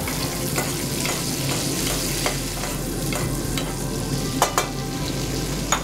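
Skate wing and romanesco sizzling in butter in a frying pan while a spoon bastes them, with a few light clicks of the spoon against the pan.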